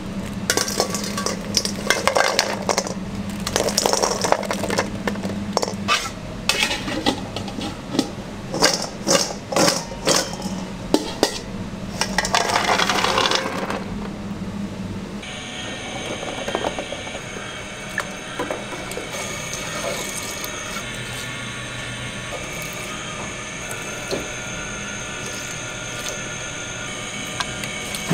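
Eggs being stirred in a pot for about fifteen seconds, clattering and knocking against the pot and the spoon, stirred so that the yolks set in the centre. Then the clatter stops suddenly and a steady kitchen hum remains, with an occasional clink.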